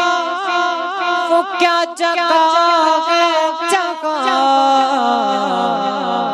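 A male voice singing a naat, an Urdu devotional poem, in long ornamented notes without clear words.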